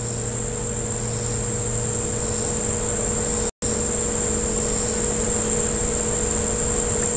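Steady high-pitched insect chorus, a continuous summer drone, over a faint steady low hum. The sound drops out completely for an instant about halfway through.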